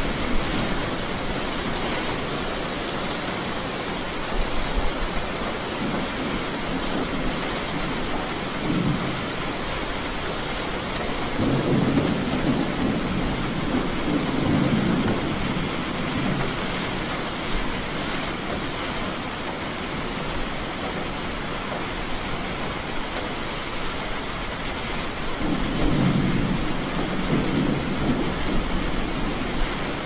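Steady rain falling, with low rumbles of thunder rolling in several times, the longest and loudest in the middle and near the end.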